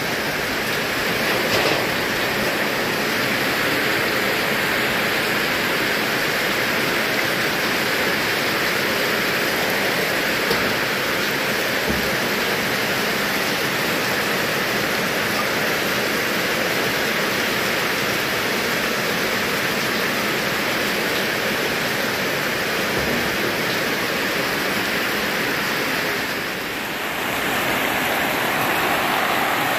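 Water pouring and splashing into a full blue plastic drum in heavy rain, a steady rushing splash. About three seconds before the end it dips briefly and gives way to heavy rain on a hard surface.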